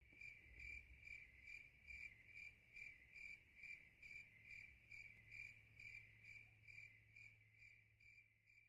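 Cricket chirping at night in an even, steady rhythm of a little over two chirps a second, fading out near the end, over a faint low hum.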